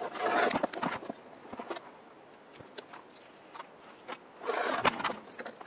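Rough scraping and rubbing noises in two bursts, one at the start lasting about a second and another about four and a half seconds in, with scattered short clicks in between.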